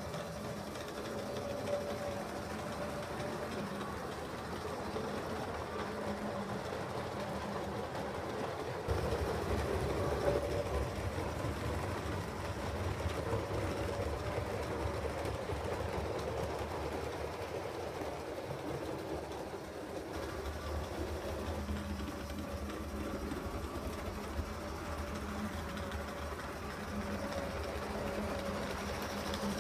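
A 7mm-scale model train running along the layout's track, its wheels and motor making a steady rumble that grows louder about nine seconds in.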